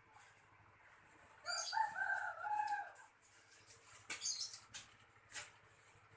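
A rooster crows once, starting about a second and a half in. A few light clicks and rustles follow.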